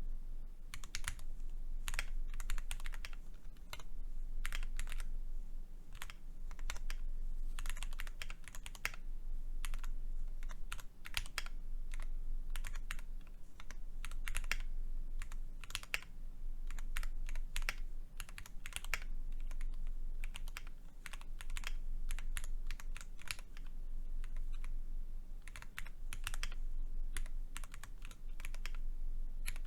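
Continuous typing on a custom 60% mechanical keyboard with Cherry MX2A Black linear switches in an aluminium plate: a quick run of key clicks, with brief pauses between bursts.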